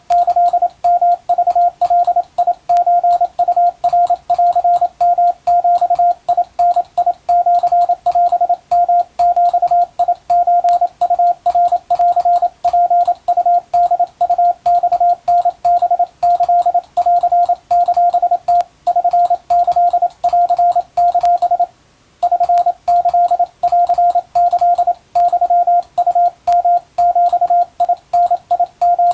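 Japanese (wabun) Morse code: a single steady beep tone keyed on and off in rapid dots and dashes, with a brief gap a little over two thirds of the way through.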